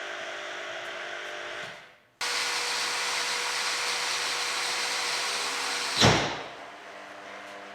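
Angle grinder running, dying away as it is switched off, then switched back on abruptly about two seconds in and running steadily at full speed. About six seconds in there is a sudden loud hit, after which the grinder runs quieter.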